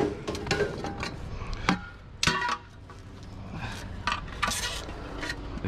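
A length of aluminium extrusion being handled: knocks, clinks and short scraping rubs of the tube, the loudest scrape about two seconds in.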